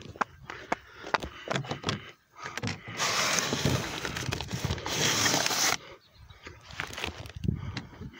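Mail being pulled out of a Step2 plastic mailbox: light clicks and knocks, then a loud rustle of envelopes and mailers about three seconds in. The rustle lasts nearly three seconds with one brief break.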